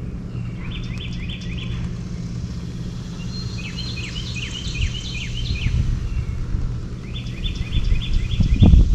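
A songbird calling in three runs of quick repeated chirps, over a steady low hum. Near the end a low rumbling thud is the loudest sound.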